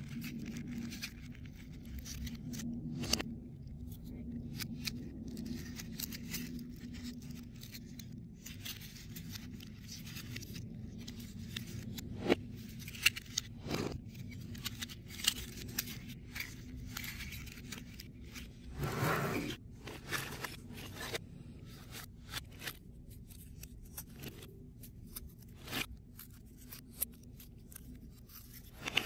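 Foam-board 3D puzzle pieces being handled and pressed together, with scattered small clicks and scrapes and a longer rustling scrape about nineteen seconds in.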